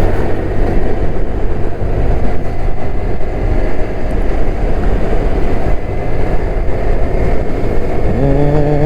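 Motorcycle running on the move, with heavy wind rumble on the helmet or action-camera mic. A steady low pitched tone comes in about eight seconds in.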